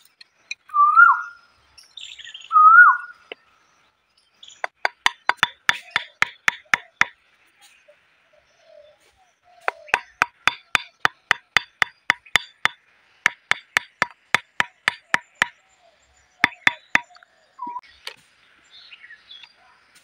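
Stone striking green bamboo stakes to drive them into the soil: runs of rapid, sharp, slightly ringing taps, about five a second, stopping and starting four times. Before the tapping, two short bird-like whistled chirps that rise and fall.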